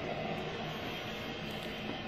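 Steady background room noise: an even low hiss and hum with no distinct event.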